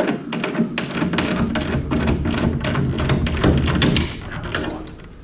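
Irregular tapping and rubbing as a finger and cloth press down on a decal on a snow plow blade, working out air bubbles under the sticker.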